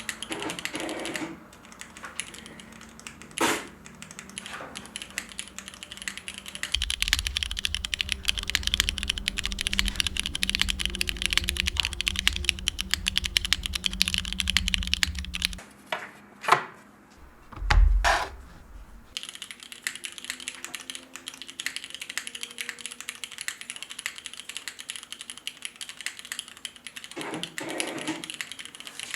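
Mode Tempo mechanical keyboard with a polycarbonate plate, Cherry MX2A Black linear switches and GMK keycaps, typed on over a tempered-glass desk pad. The typing comes in runs, densest in the middle, broken by short pauses and a few louder single key strikes.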